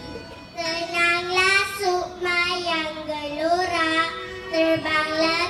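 A young girl singing into a microphone over backing music, coming in about half a second in with long held, wavering notes.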